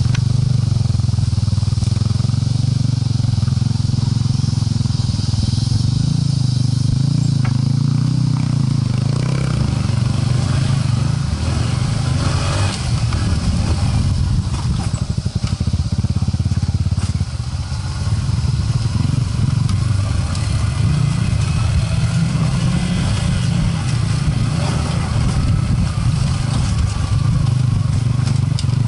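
Trail motorcycle engine running steadily at low revs, heard from on board while riding a bumpy dirt trail, with rattling and clatter from the rough ground. The engine note eases for a stretch midway and then picks up again.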